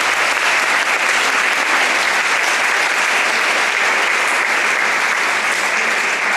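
Audience applauding: dense, even clapping.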